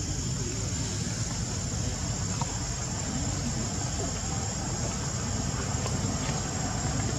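Insects buzzing steadily and high-pitched, over a low rumble of wind on the microphone.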